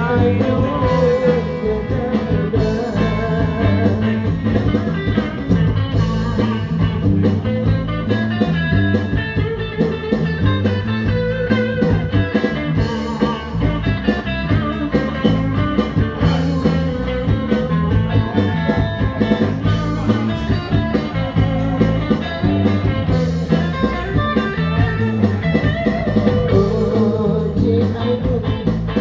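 Live small band playing a 1960s-style Malay pop song: electric bass, guitar and keyboard together at a steady beat.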